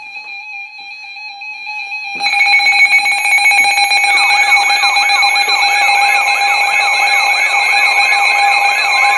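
Weather alert radio alarms going off for an incoming severe thunderstorm warning. A steady high beep fades up, then about two seconds in it jumps much louder into a dense alarm with a rapidly repeating siren-like warble.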